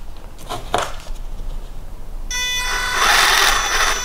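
Electric motor and plastic gearbox of a WPL WP-14 1/16 RC truck spinning the drivetrain with the truck held off the ground: a steady whine over a gear whirr that starts suddenly a little over two seconds in. Before it, a couple of light knocks as the truck is turned over in the hand.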